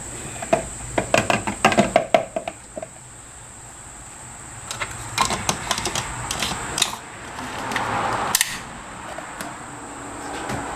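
Plastic intercooler reservoir cap being screwed on, a quick run of sharp clicks over the first couple of seconds, followed by scattered small clicks and handling knocks.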